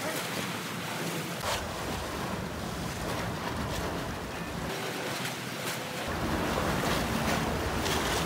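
Seawater lapping against a concrete pier, with wind buffeting the microphone in gusts.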